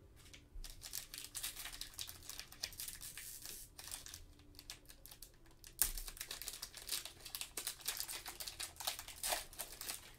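Trading-card pack wrapper being crinkled and torn open by gloved hands, a dense crackling with one sharp, loud tear about six seconds in.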